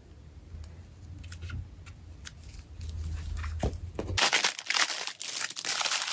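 A few faint light taps, then from about four seconds in loud crinkling of a clear plastic bag of packaged diamond painting drills being handled.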